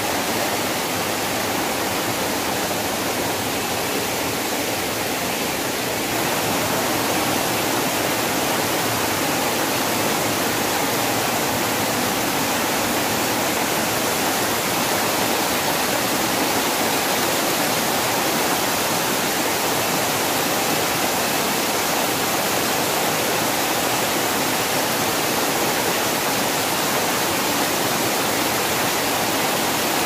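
Small forest waterfall, water rushing and splashing steadily over rocks, a little louder from about six seconds in.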